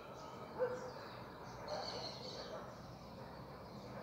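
Faint outdoor morning ambience with small birds chirping now and then, most clearly about two seconds in, and one brief louder call just after half a second in.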